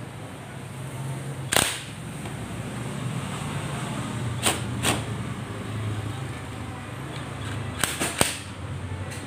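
Sharp metallic clicks from a cordless impact wrench and its socket on the clutch nut of a Honda Supremo motorcycle engine: one about a second and a half in, two around the middle, and three close together near the end, over a steady low hum.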